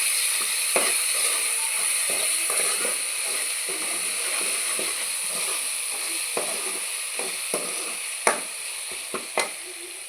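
Onion and tomato masala sizzling in a pan as the tomatoes cook down, with a spoon clicking and scraping against the pan as it is stirred; a few sharper taps near the end.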